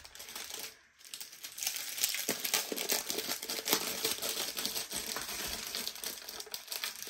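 Clear plastic bags of diamond painting drills crinkling as they are handled, pulled from an outer bag and laid down, with the small resin drills clicking inside. There is a short pause about a second in.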